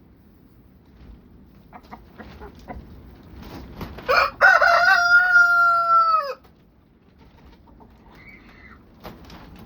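Rooster crowing once, about four seconds in: a quick rising start, then a long held note that drops away at the end. Soft clucks and small clicks from the flock come before it, and a faint call follows.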